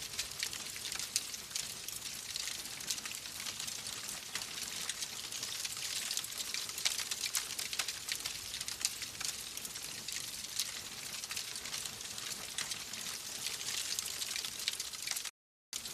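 Wood fire crackling in a fireplace: dense, fast, small pops over a steady hiss. The sound cuts out completely for under half a second near the end.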